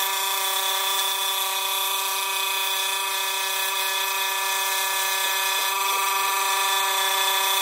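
Scroll saw running with a spiral carbon-steel blade, cutting a curve in a thin wooden panel: a steady machine hum at one even pitch with a hiss of cutting over it.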